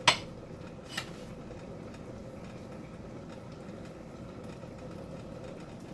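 A sharp clink against a cooking pot, then a lighter one about a second later, followed by a steady low hiss from the pot simmering on the stove.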